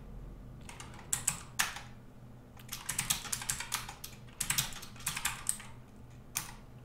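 Typing on a computer keyboard: short bursts of a few keystrokes with brief pauses between them, starting about a second in.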